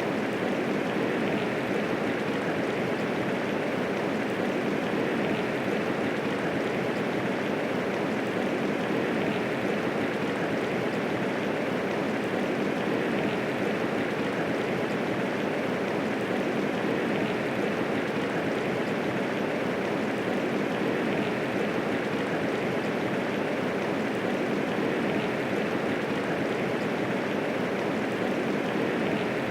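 Steady medium rainfall, an even, unbroken hiss of falling rain with no thunder.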